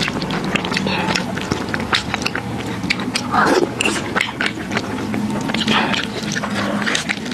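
A person eating corn noodles in tomato-and-egg sauce close to a clip-on microphone: a steady run of quick, wet mouth clicks and smacks of chewing.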